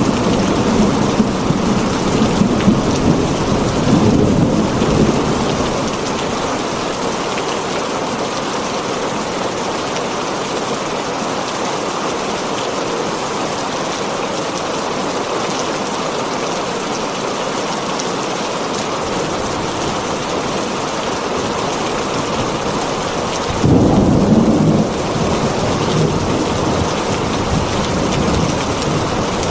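Heavy rain drumming steadily on a tin roof, with thunder rumbling low in the first few seconds and a sudden louder rumble about three-quarters of the way through.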